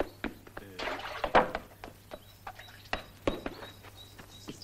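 A few scattered footsteps and knocks on dry ground, about five short thuds and clicks. A faint, thin, high bird call is held through the second half.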